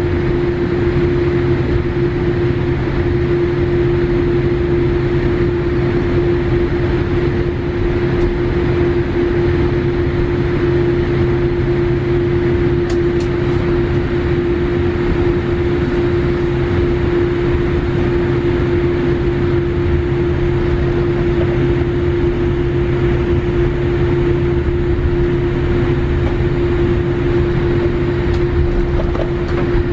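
Airliner cabin noise while taxiing: a steady rumble and hiss from the idling jet engines and cabin air, with a constant mid-pitched hum.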